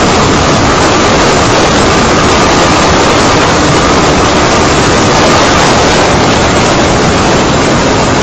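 Wind rushing over the microphone of a motorcycle at road speed, a loud, steady roar that buries the engine. A faint steady whine sits underneath and fades about five seconds in.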